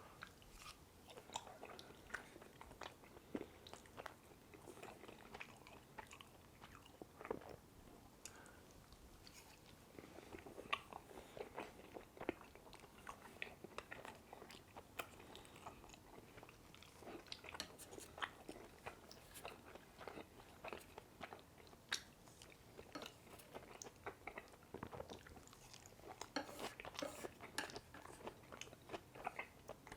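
Close-miked chewing and mouth sounds of someone eating, with many scattered small clicks and crunches.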